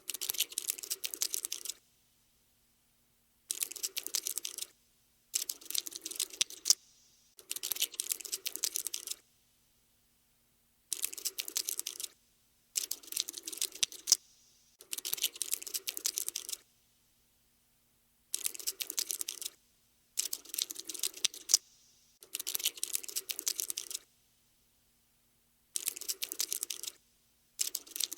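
Cockroach scuttling sound effect: quick, dry clicking of tiny legs in bursts of one to two seconds, about a dozen of them, separated by short silences as the insect starts and stops.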